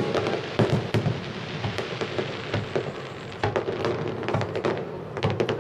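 Aerial fireworks shells bursting in rapid, overlapping succession: a dense string of bangs and crackle with low booms underneath.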